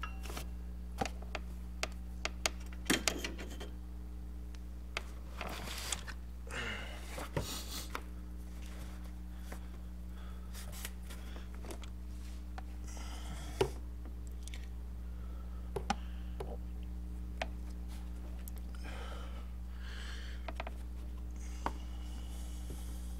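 Hands fitting an A/C compressor drive belt onto its pulleys in an engine bay with the engine off: scattered sharp clicks and light scrapes and rustles over a steady low hum.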